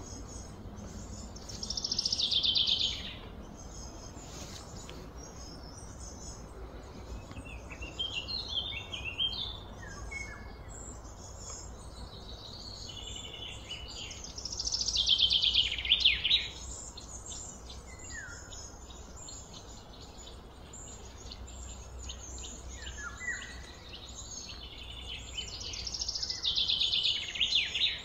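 Wild songbirds: one bird repeats a loud, falling song phrase three times, each lasting two to three seconds and about twelve seconds apart, with scattered short chirps from other birds between, over a steady high background hiss.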